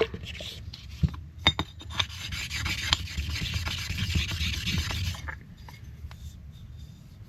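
Old gasket residue being rubbed and scraped off the metal mating surface of an outboard's reed plate. There are a few light knocks about a second in, then a steady scratchy rubbing for about three seconds that fades to faint scraping.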